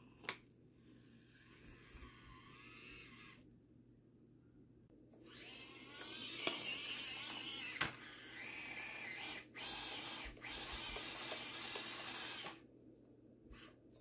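Axial SCX24 Deadbolt micro RC crawler's electric motor and gearbox whining under throttle as it climbs, in bursts: faint for the first few seconds, a short pause, then louder running for about seven seconds with two brief stops. A sharp knock comes just after the start and another in the middle.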